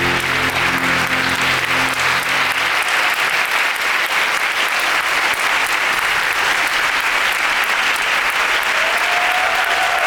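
Theatre audience applauding steadily over curtain-call music whose sustained low notes fade out about two and a half seconds in; a held tone comes in near the end.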